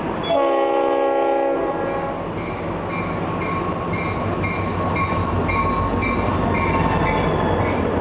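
CSX EMD SD40-2 locomotive's Leslie S5T five-chime horn sounds one short blast, starting a moment in and lasting about a second and a half, while its bell rings steadily about twice a second. The locomotive's diesel rumble grows louder as it approaches.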